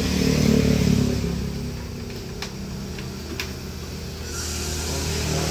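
A motor vehicle engine on the road close by, loudest in the first second and then fading. Three light clicks come about halfway through, and the traffic noise swells again near the end.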